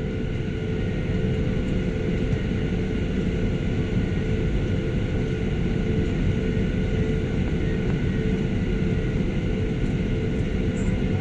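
Aircraft engines running steadily: a constant low rumble with a steady whine over it.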